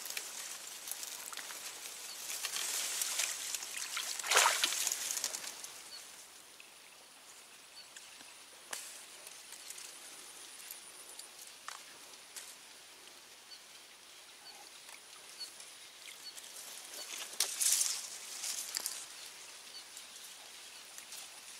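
Quiet outdoor ambience of rustling, hissy noise, with a faint steady high-pitched tone and two louder brief rustles, about four seconds in and again near eighteen seconds.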